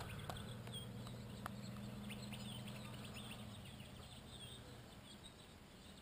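Small birds chirping and twittering in quick, scattered calls at dawn by the water, over a faint low hum that fades out about five seconds in.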